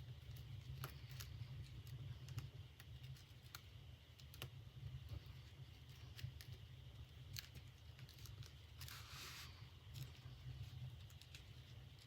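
Faint scattered small clicks and a brief rustle about nine seconds in: hands working fabric into a metal purse clasp frame. A low steady hum lies underneath.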